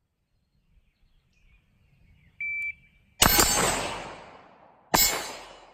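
A shot timer beeps once, then two gunshots follow less than two seconds apart, each trailing off in a long echo: a rifle-to-pistol transition drill with an SR-15 carbine and a Glock 19.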